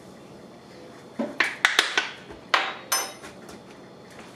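Metal measuring spoons clinking and the cap of a plastic oil bottle being twisted open: about six sharp clicks and clinks in a couple of seconds from about a second in, one ringing briefly.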